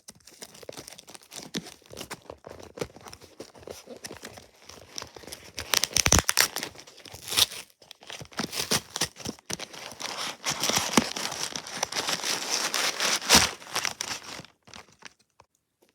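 Package being opened by hand: packaging crinkling and tearing in irregular bursts, with louder rips about six seconds in and again near the end.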